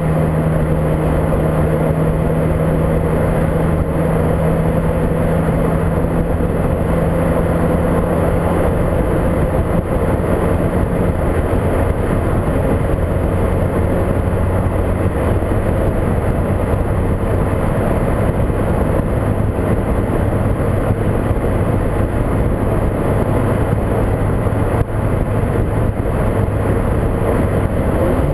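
Volkswagen Mk5 GTI on the move: steady engine hum and road noise under heavy wind noise on the microphone, the engine note dropping lower about a third of the way through.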